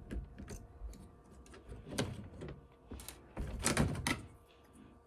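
Scattered small clicks and short scrapes of a screwdriver and hands working on screws and parts inside an opened laptop. The loudest scrapes come about two seconds in and again around three and a half to four seconds in.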